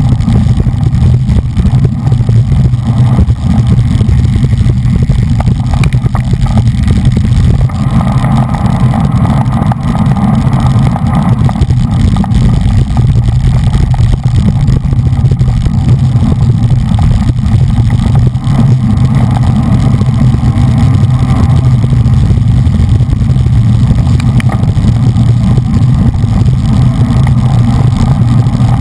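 Loud, steady wind rumble on the microphone of an action camera riding at racing speed on a road bicycle, with the hiss of tyres on tarmac underneath.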